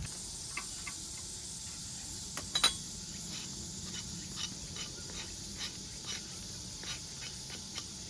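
Insects, such as crickets, chirring steadily in the background, with scattered light taps and clicks and one sharper click about two and a half seconds in.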